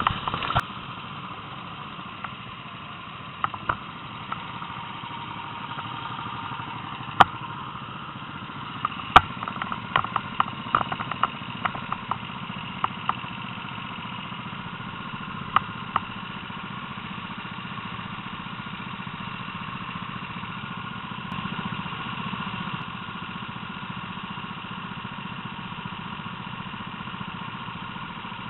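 Rental go-kart engines, small single-cylinder four-strokes, idling steadily. Sharp clicks and knocks come through during the first half.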